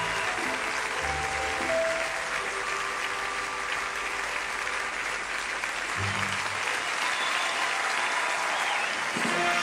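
Large audience applauding steadily, with music playing underneath that shows as low notes near the start and again about six seconds in.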